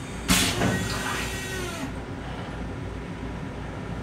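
A sudden loud hiss of air about a third of a second in, fading out over a second and a half, over the steady low rumble of an M7 railcar.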